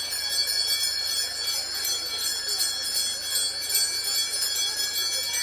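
Several small handbells shaken continuously, a bright overlapping jingling ring with quick repeated strikes, as rung in a Corpus Christi procession.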